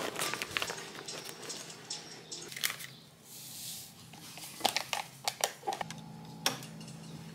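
Small kitchen handling sounds: scattered clicks and taps on a table and glass mug, with a short hiss around three seconds in. Near the end, an electric kettle's switch clicks on, and a low steady hum follows as it starts heating.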